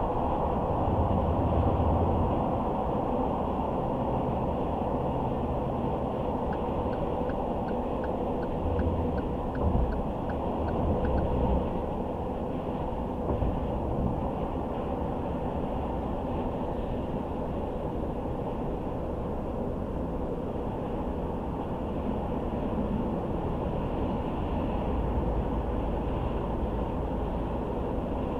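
Car driving along the road: steady tyre and road noise with a low engine rumble that swells now and then. About a quarter of the way in, a run of light, evenly spaced ticks, about three a second, lasts for about five seconds.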